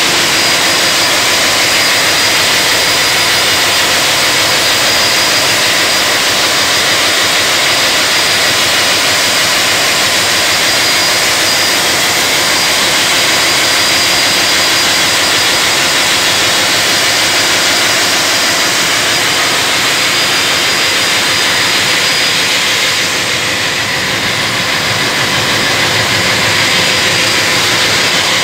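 Main diesel engine of a river pusher tug, rated at 1,700 hp, running steadily under way: a loud, unbroken engine-room din with steady high tones through it, slightly quieter about 23 seconds in.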